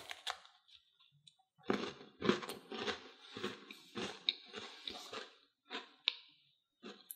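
Crisp vanilla sandwich cookie with matcha filling (Trader Joe's matcha Jojo's) bitten off at the start, then chewed with a run of irregular crunches for a few seconds.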